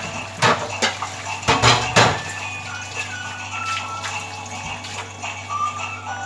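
A few metal clinks and knocks of cookware, about half a second in and again around one and a half to two seconds in, over background music.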